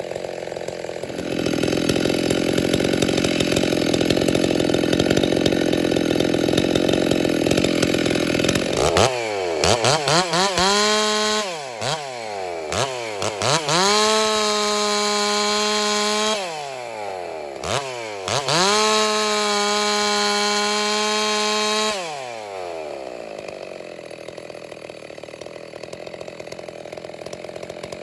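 Ported Stihl 660-clone two-stroke chainsaw with a 28-inch bar running at full throttle under load in a cut for about nine seconds. It then revs freely in several rising and falling blips, held at high revs twice, before dropping back to a low idle near the end.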